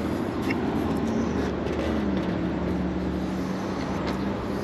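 Packaged air conditioner running with a steady hum from its compressor and condenser fan. The three-phase compressor is wired out of phase, so it runs backwards and does not pump. A tone in the hum slides lower about two seconds in.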